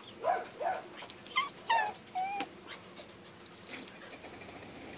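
A dog whining in short, high whimpers, about five of them in the first two and a half seconds, then going quiet.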